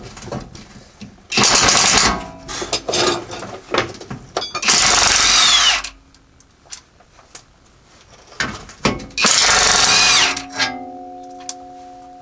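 Impact wrench running in three short bursts on bolts, its pitch falling as each burst winds down, with clanks of tools and parts between bursts. A steady hum starts near the end.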